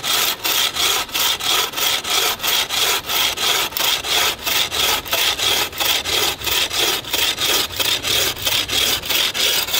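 Handmade bucksaw with a tensioned blade sawing through a green birch log in steady, quick back-and-forth strokes, about four a second. This is the saw's first cut test, and it cuts well.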